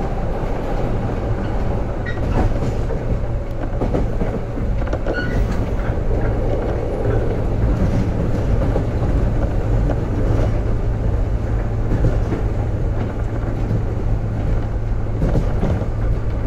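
JR 415-series electric multiple unit running, heard from inside the passenger car: a steady rumble of wheels on rail over a steady low hum, with scattered rail-joint clicks.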